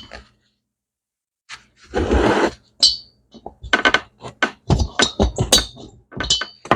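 Metal hand tool working a small spring retaining clip off a valve guide in an aluminium motorcycle cylinder head. A short scrape about two seconds in, then a quick run of sharp metal clicks and taps, some with a brief high ring.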